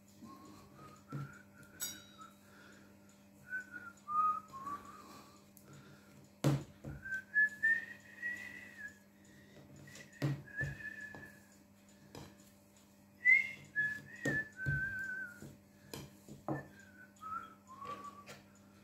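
Someone whistling a slow, wandering tune in short phrases while dough is rolled out, with a few sharp knocks of the glass bottle used as a rolling pin against the wooden board; the loudest knocks come about six and thirteen seconds in.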